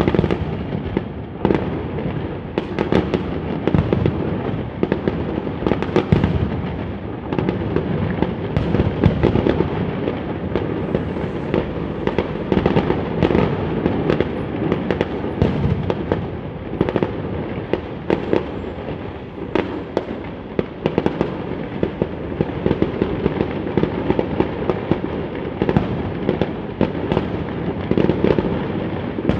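Fireworks display going off in rapid, overlapping bangs over a continuous rumble of bursts, with a few louder cracks standing out.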